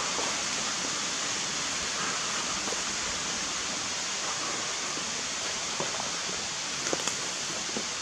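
Steady, even rushing hiss of outdoor ambience, with a few faint clicks about six to seven seconds in.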